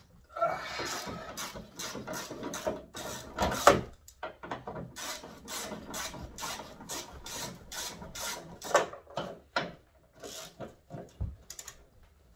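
Hand work on the race car: a run of short rasping, scraping strokes, about two a second, with a louder knock about three and a half seconds in.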